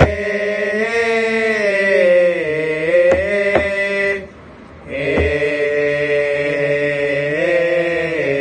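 Thai royal barge chant (he ruea): a long held chanted vowel that slowly bends up and down in pitch, pausing briefly for a breath about halfway, then picking up again. A few sharp knocks sound in the middle.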